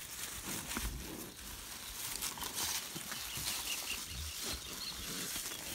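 Cattle feeding on corn close up: scattered crunching, rustling and shuffling noises with a few low thumps.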